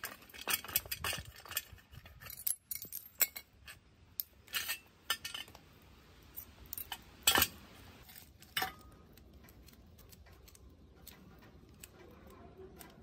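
Rusty steel bicycle parts (frame tubes, fork, chain) clinking and knocking against each other and the pavement as they are handled. There is a quick run of metallic clinks over the first several seconds and the loudest knock about seven seconds in, then only a few faint clinks.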